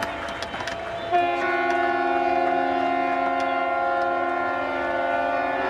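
Several ships' horns sound together about a second in, making a steady chord of different pitches that holds to the end. A crackle of applause fills the first second.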